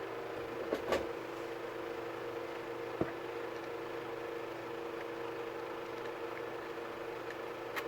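Steady machine hum with light clicks about a second in, around three seconds and near the end.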